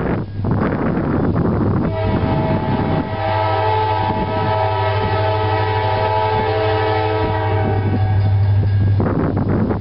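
Diesel freight locomotive's multi-chime air horn blowing: a couple of shorter blasts, then one long blast of about six seconds that stops near the end, over a steady low rumble.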